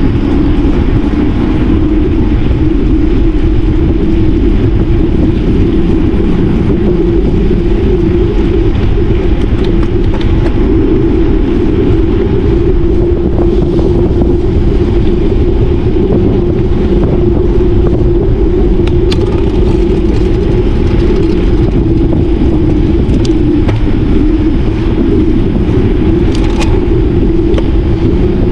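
Steady, loud wind rush and rumble on the microphone of a camera carried on a moving bicycle, with a constant low hum of tyres rolling on the path and a few faint ticks in the second half.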